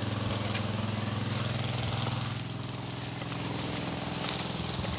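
Small engine running steadily at a constant speed, most likely the engine of the pump working the ditch, with light rustling and crackling of grass and twigs underfoot.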